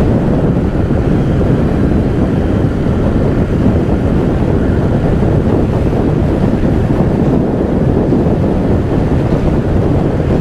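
Steady, loud wind rush buffeting the microphone of a camera on a motorcycle travelling at highway speed, with the bike's running and road noise underneath.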